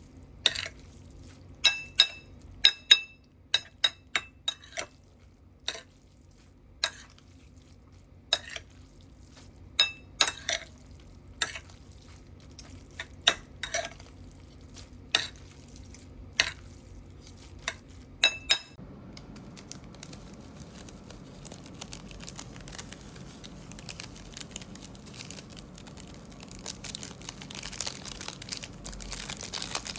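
A utensil clinking and scraping against a dish, irregular sharp clinks, some with a brief ring, as instant noodles are stirred in it. About eighteen seconds in the clinking stops and a steady hiss with light crackling takes over, growing louder near the end.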